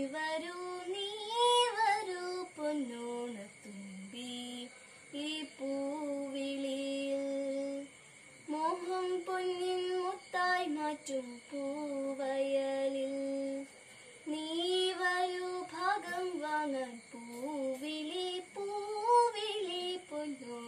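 A girl's solo voice singing unaccompanied, with long held notes and gliding phrases broken by short pauses for breath.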